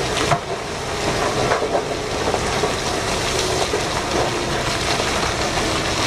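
Giant mining dump truck tipping its load: a steady rush of rock and earth sliding out of the raised bed, with a few knocks.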